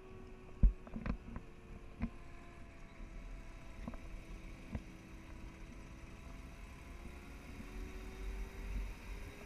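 Daimler Ferret armoured car on the move: its Rolls-Royce B60 six-cylinder petrol engine and drivetrain give a steady whine that sinks in pitch and rises again near the end, under a low rumble. Several sharp knocks and rattles, the loudest just under a second in.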